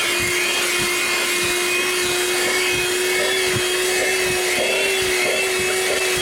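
Audew 12V DC handheld car vacuum cleaner running steadily with an even whine, sucking dirt up off a floor.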